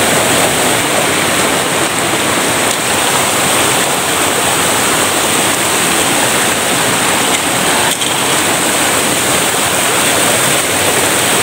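Mountain stream rushing and splashing over rocks in a steady rush of water, with one brief tap about eight seconds in.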